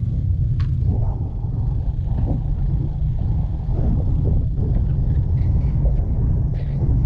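Motorcycle ride: a steady low rumble of the engine and wind buffeting the microphone, with a few faint clicks and rattles.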